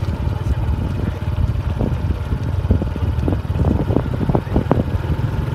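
Wind buffeting the microphone and a steady low rumble from a bicycle rolling along a rough concrete path. About halfway through comes a run of quick rattles and knocks.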